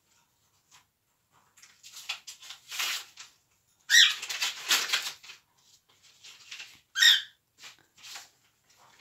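Paper envelope being torn and opened, in several rustling, tearing bursts, the loudest about four seconds in, with two short high squeaks about four and seven seconds in.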